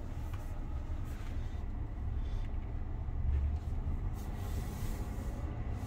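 Low, steady tyre and road rumble inside the cabin of a moving Tesla Model Y, an electric car with no engine note, with a faint steady high tone above it.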